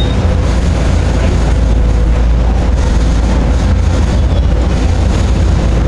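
Park ride-on miniature train running steadily through a corrugated metal tunnel, heard from a passenger car: a continuous rumble with a deep low drone and a faint steady whine.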